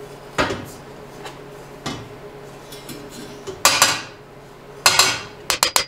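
A hammer striking exhaust headers clamped in a vise, denting the tubes where they were hitting so they clear. It starts as a few separate metallic clanks with pauses between them, then near the end turns into a quick run of rapid blows, several a second.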